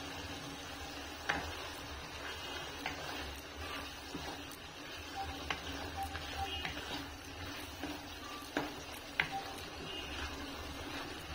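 A spatula stirring thick egg curry gravy in a nonstick pan, with several sharp taps as it knocks against the pan, over a steady low hum.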